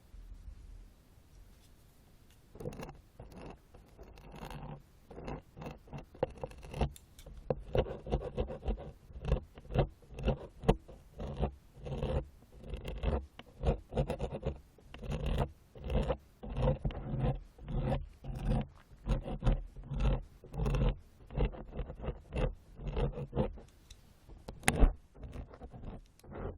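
Ear-cleaning ASMR: an ear-cleaning tool scraping in rapid, repeated strokes against a microphone's ear, about one to two strokes a second. The strokes start faint and grow louder a few seconds in.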